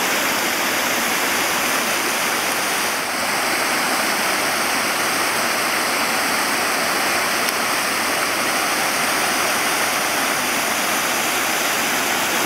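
Steady rush of flowing water, even and unbroken, with a faint steady high tone above it.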